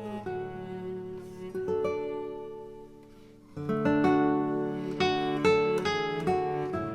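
Background music: acoustic guitar plucking and strumming chords, fading down in the middle and coming back with a fresh strummed chord about halfway through.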